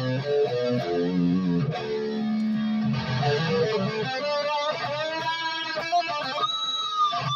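Electric guitar, a home-built Explorer-shape conversion of a 2005 B.C.Rich Mockingbird, playing a lead line: a run of notes, then string bends, then a high held note with vibrato near the end.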